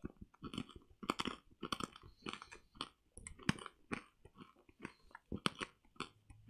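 A hard candy being chewed and crunched in the mouth close to the microphone: a run of irregular crunches, a few a second.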